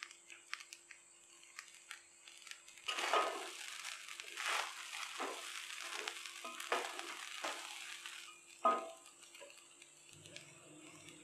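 Spatula stirring and tossing fried rice in a steel pan, scraping and clicking against the metal, with a light sizzle. The stirring gets louder about three seconds in, with one sharp scrape near the end.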